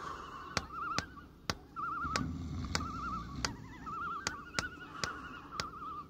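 Spooky sound-effects recording from a cassette: sharp clicks or taps about twice a second, slightly unevenly spaced, over short bursts of warbling, wavering whistle-like tones and a low rumble.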